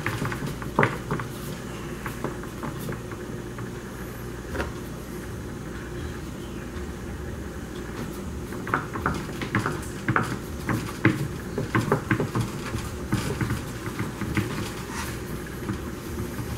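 Soft scattered taps and knocks of fingers pressing a pizza dough rim against the edge of a round metal pan on a wooden board, over a steady low hum.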